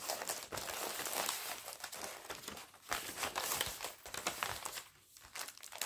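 Packaging crinkling and rustling as it is handled, in irregular bursts, going quieter about five seconds in.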